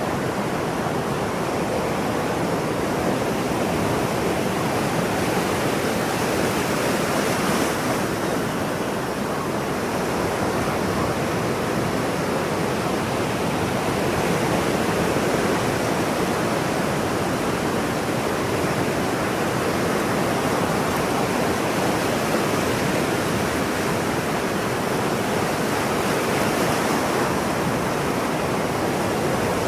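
Ocean surf washing continuously, a steady rushing roar with no single breaker standing out.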